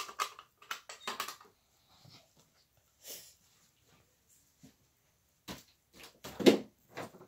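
Scattered clicks and knocks of a Simplex fire alarm pull station's plastic T-bar and loose spring being handled, with a louder short burst about six and a half seconds in.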